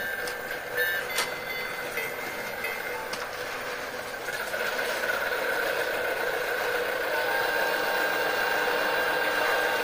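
Small electric motor of a battery-powered toy train whirring as it runs along plastic track, with a steady whine that grows louder from about halfway through. A few light clicks in the first second and a half.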